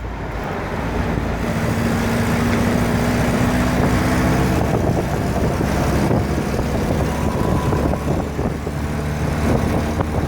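1947 Triumph 1800 roadster driving on the road, its four-cylinder engine running under load with road and wind noise. The engine note rises slightly, then drops about four and a half seconds in.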